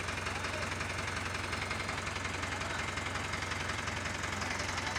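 Diesel engine of an Indo Power pick-and-carry crane running steadily with a fast, even pulse while the crane holds a bundle of ductile iron pipes on its hook.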